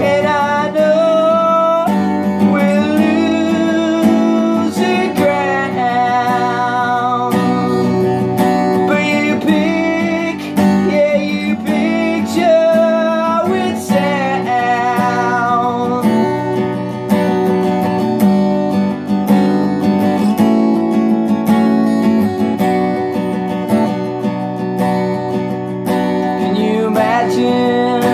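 Acoustic guitar strummed steadily in chords, with a man singing over it for much of the time.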